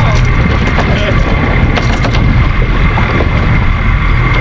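Small-boat outboard motor running steadily with the boat under way, a low rumble with a constant whine, and wind buffeting the microphone.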